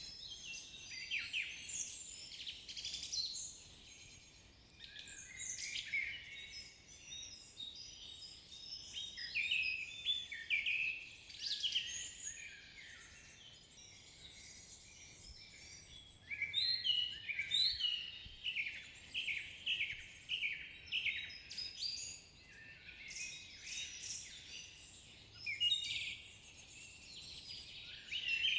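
Several songbirds singing and calling together in dense, overlapping chirps and trills, with a quick series of repeated falling notes about halfway through.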